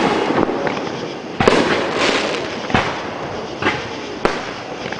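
Fireworks display: aerial shells bursting, with several sharp booms about a second apart and noise ringing on between them.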